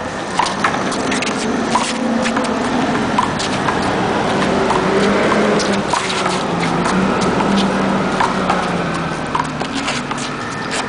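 Handball rally: a small rubber ball smacking against the concrete wall and the players' palms, with sneakers scuffing on the asphalt. There are many short, sharp smacks and scuffs over a steady hum of traffic.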